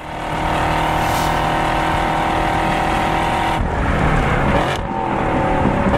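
A car engine running at high revs with a steady, even note that breaks up about three and a half seconds in and picks up again a second later.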